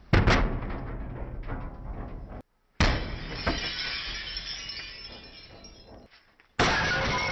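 A Black & Decker microwave being smashed with a golf club, its glass and plastic shattering and breaking. There is a sharp hit right at the start, a second hit about three seconds in trailing into a long crash of breaking, and a third loud burst of breaking near the end, with brief dead-silent gaps between them.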